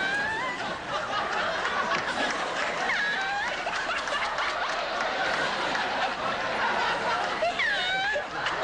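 Many people laughing hard and without stopping, a studio audience and people on stage together, as a continuous din of voices. Single high-pitched laughs glide up and down over it at the start, about three seconds in, and near the end.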